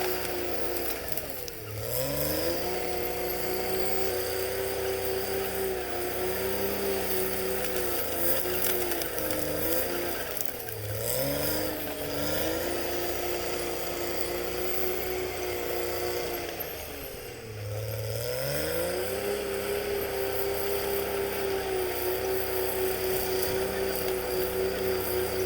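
Caterpillar D6R XL bulldozer's diesel engine running under work. Its pitch drops sharply and climbs back three times, about a second and a half, ten seconds and seventeen seconds in: the engine lugging down under load and recovering.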